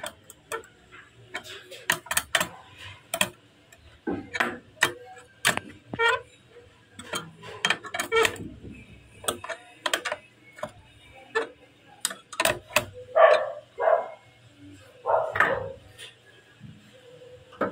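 Metal wrench clinking against a hex nut and the steel strap of a pipe clamp as the nut is turned on a threaded hanger rod: an irregular run of sharp metallic clicks, several a second.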